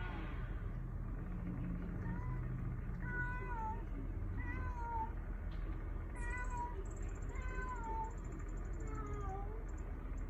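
A cat's territorial yowling in a standoff between two cats: a string of about seven drawn-out, wavering calls, one every second or so.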